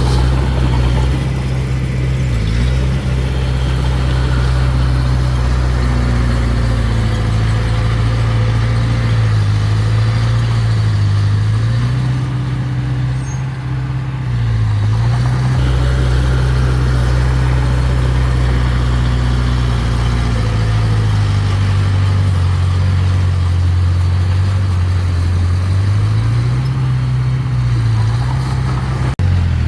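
Mini bulldozer's engine running steadily under work. Its pitch dips briefly several times as the engine is loaded.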